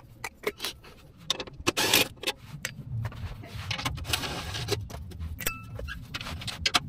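Loose steel skid-plate bolts and hand tools clinking and rattling against the metal skid plate under a Hummer H3, with a scattering of sharp knocks at irregular intervals.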